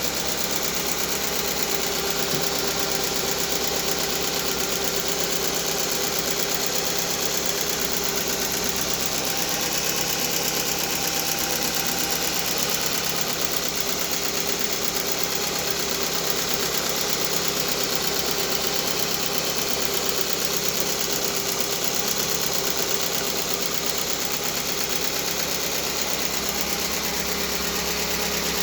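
An engine running steadily, with no revving or change in speed.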